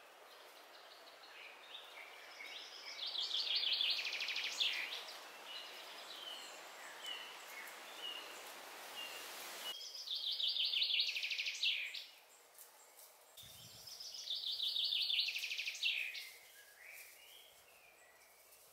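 A songbird singing the same song three times, each a fast run of high notes about two seconds long, with other birds chirping faintly between. A steady hiss underlies the first half and cuts off abruptly about ten seconds in.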